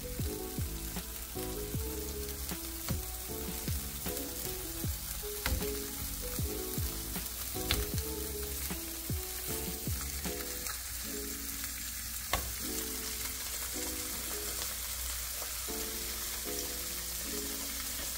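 Slices of spam sizzling steadily as they pan-fry in hot olive oil, with occasional sharp clicks.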